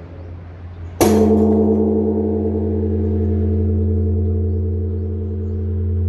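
Large bronze Japanese temple bell (bonshō) struck once by a swinging wooden log striker about a second in: a sharp hit, then a deep, long ringing of several tones that swells and ebbs slowly. The low hum of the previous stroke is still sounding before the hit.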